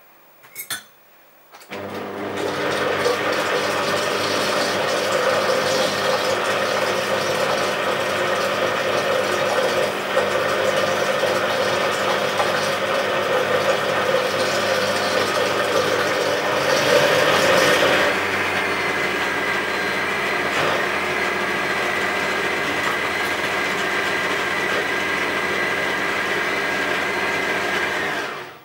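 Kenwood Chef Sense blender attachment's 1100 W motor switched on with a click of the speed dial, then running loaded as it churns thick hummus. About 18 seconds in the sound changes, losing its lower churn and settling to a steady higher tone, the sign that the blade has stalled in the hummus. It cuts off near the end when switched off.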